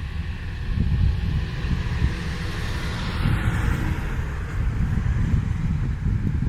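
Wind buffeting the microphone, a gusty low rumble throughout, with a broad hiss that swells and fades about halfway through.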